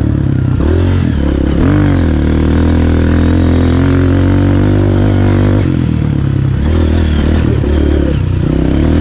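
Honda CRF230F's single-cylinder four-stroke engine running under a rider on the trail, the revs rising and falling about one to two seconds in, then holding steady before the note changes and turns choppier about six seconds in.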